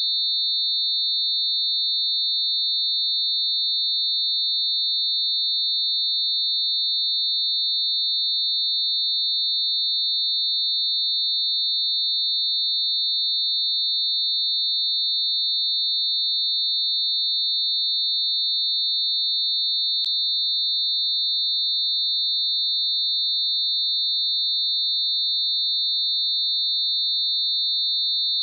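Synthetic high-pitched steady tone made of several close pure tones mixed together around 4,000 hertz, with a thin hiss around them, holding without change. A faint click about twenty seconds in.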